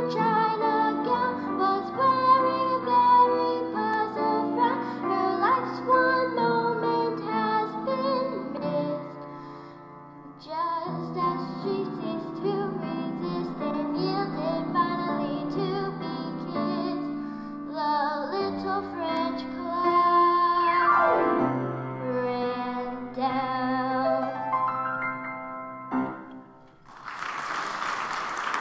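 A girl singing a song into a microphone with instrumental accompaniment; the song ends about two seconds before the end, and applause starts right after.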